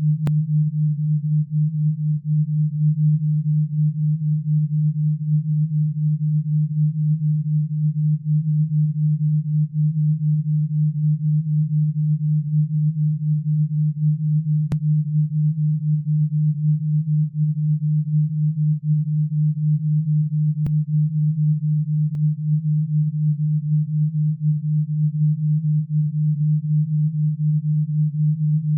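Steady low pure tone that pulses quickly in loudness throughout. It is an alpha-wave binaural-beat tone made for tinnitus sound therapy.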